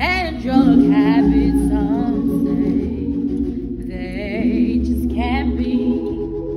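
A woman singing a slow gospel song solo, holding long notes with wide vibrato and gliding runs, over sustained low chords.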